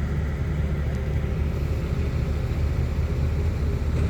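Engine running steadily at a constant speed, a low even rumble with a faint steady hum above it.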